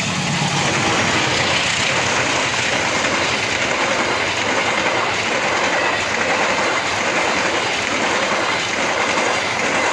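Train passing at close range: a loud, steady rush of wheels running on the rails, with a faint high tone held underneath.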